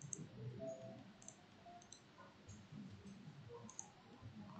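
A few faint computer mouse clicks, spread over the few seconds.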